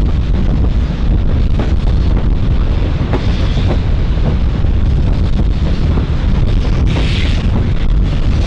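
Steam locomotives R761 and D3 639 starting away slowly: exhaust chuffs, with steam hissing from the open cylinder drain cocks in bursts about three seconds in and again about seven seconds in. Heavy wind rumble on the microphone runs under it all.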